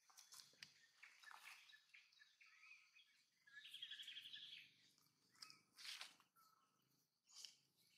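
Faint outdoor ambience of small birds chirping, with a short rapid trill near the middle and a few soft clicks.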